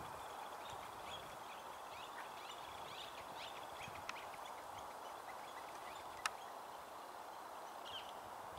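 Quiet wetland ambience: a steady hiss with scattered faint, high bird chirps, most of them in the first half. A small tick about four seconds in and a sharp click a little past six seconds.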